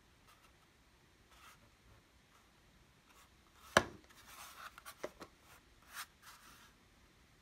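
Hands handling a Linksys Velop plastic mesh Wi-Fi node: faint rubbing and rustling, with a sharp knock just before four seconds in, then more rustling and a few lighter knocks.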